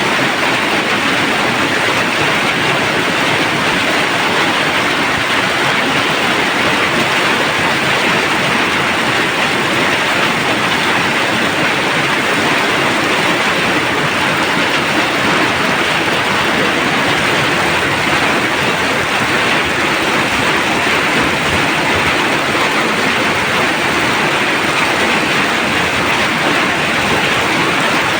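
Steady rainfall: an even, unbroken hiss that holds the same level throughout.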